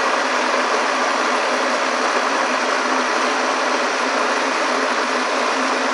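Blender motor running steadily at full speed, puréeing a thick mango habanero sauce.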